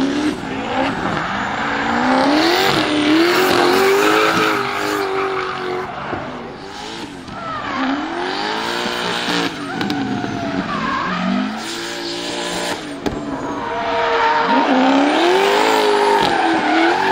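Ford Mustang drift car's engine revving up and falling back again and again as it slides sideways, over the steady squeal and scrub of spinning rear tyres.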